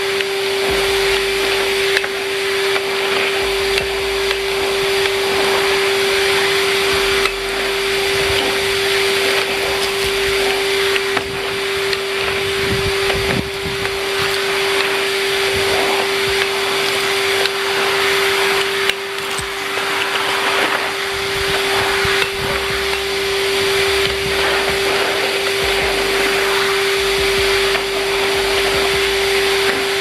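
Numatic Henry vacuum cleaner running steadily: a constant motor whine over the rush of air drawn through its hose.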